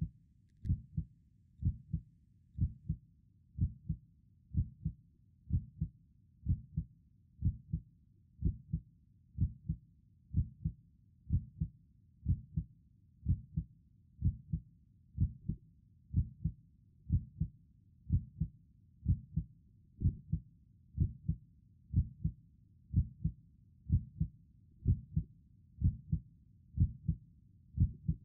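Heartbeat sound: a steady, low lub-dub double thump repeating about once a second.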